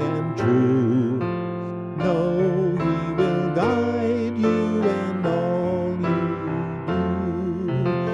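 Keyboard music: a slow, gentle melody of held notes over sustained chords.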